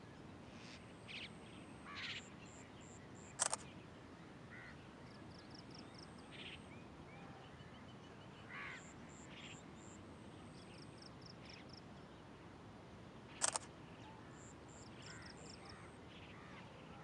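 Many birds calling, with short chirps and quick runs of four or five high notes repeated over and over. Two loud, short calls, about ten seconds apart, stand out above the rest.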